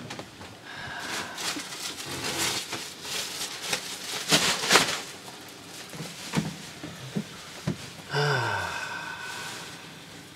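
Plastic trash bag rustling and crinkling as it is handled, loudest about four seconds in, followed by a few light knocks and a short sound that falls in pitch near the end.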